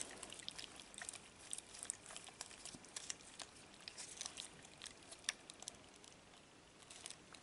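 Faint, irregular clicks and soft squelches from a balloon stress ball filled with slime and Orbeez water beads being squeezed and kneaded in the hands.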